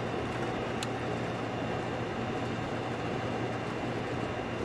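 Air conditioner compressor running steadily with a low, even hum on a freshly replaced relay, the unit working normally.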